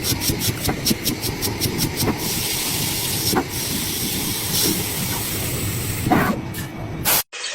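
Machinery running with a low rumble and hiss, with fast, even ticking in the first two seconds and a few scattered knocks later; it cuts off abruptly near the end.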